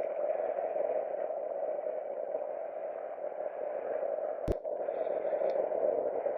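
Steady rush of flowing creek water, running high after rain, with a single sharp click about four and a half seconds in.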